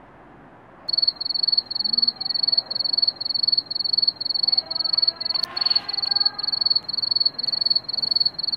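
Rapid electronic beeping: a single high tone pulses on and off about three times a second, starting about a second in.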